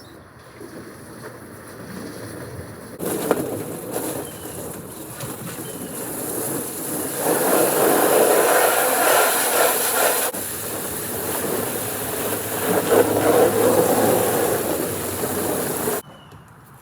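Water spraying from a hose into the drained pond to rinse it out: a steady rushing hiss that starts suddenly about three seconds in, swells and ebbs, and cuts off abruptly near the end.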